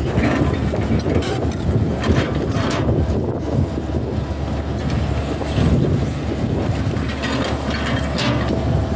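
Hitachi hydraulic excavator's diesel engine running steadily under work, with several short bursts of noise over it as the machine digs.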